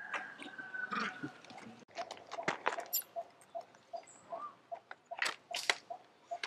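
Outdoor natural ambience: scattered sharp clicks and crackles, with a soft note repeated about two to three times a second underneath. A held whistle-like note sounds at the start, and a brief chirp comes about four seconds in.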